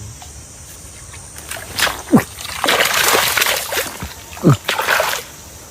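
Water splashing hard in repeated bursts for a few seconds, from a hooked snakehead thrashing at the surface.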